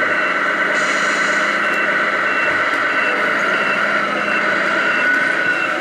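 Reversing beeper of a radio-controlled model truck's sound unit: short high beeps about once every 0.7 s over a steady hum.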